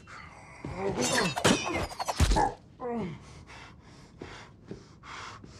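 Thuds and clatter mixed with a man's grunts, then a falling groan and a run of short, ragged gasping breaths, about three a second, from a man who has just been stabbed in the chest with a knife.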